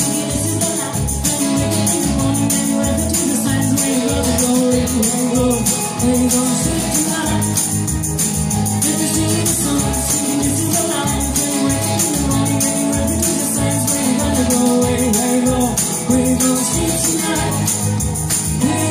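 A woman and a man singing into microphones over amplified backing music with a steady beat.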